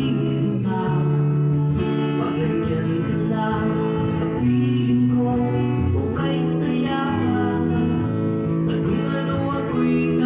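Music with guitar and steady held chords.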